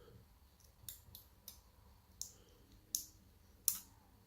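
Sharp metallic clicks and ticks, about seven at irregular intervals with the loudest near the end, as a shim is worked against the tight plug of a Ruko Oval euro lock cylinder.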